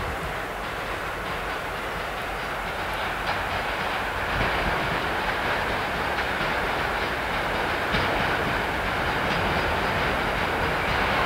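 TEM2 diesel locomotive hauling a train of wagons as it approaches: engine running and wheels clacking over the rail joints, growing steadily louder.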